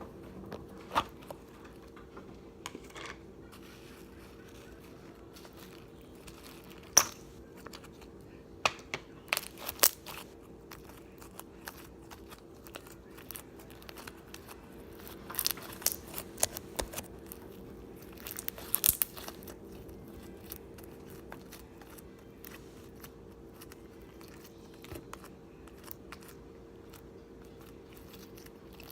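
Scattered clicks, crinkles and short rustles of things being handled, the loudest a sharp click about seven seconds in, over a faint steady hum.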